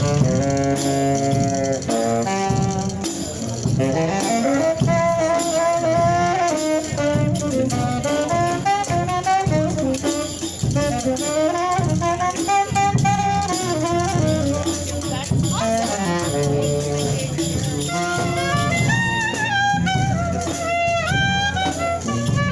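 Second-line brass band playing a jazzy tune, horns carrying the melody over a steady low bass line.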